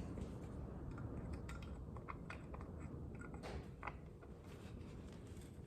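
Faint, scattered small clicks and light taps of hand tools and wood being handled while a nail is worked out of a wooden birdhouse.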